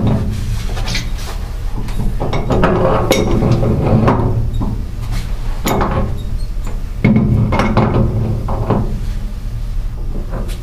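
Metal knocks and clinks of a wrench on the glycol filter cartridge as it is worked loose, over a steady low hum and pitched tones that come and go, likely background music.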